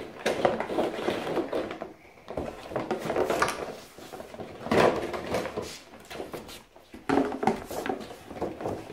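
Cardboard toy boxes and their plastic packaging being handled and opened, with irregular scrapes and knocks.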